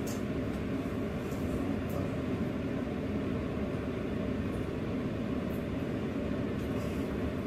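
Steady low rumble of room background noise, with a few faint small clicks.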